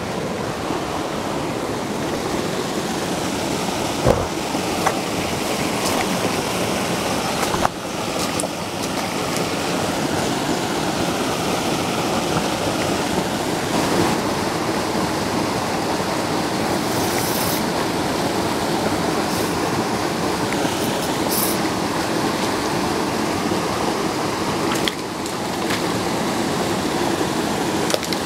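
Water rushing steadily over a spillway into a pool, with a few brief knocks.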